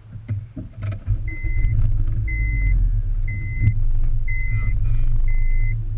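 Car engine running as a low rumble that grows louder about a second in, after a few knocks, with a short high warning chime beeping about once a second. All of it muffled, heard through a sealed waterproof camera case.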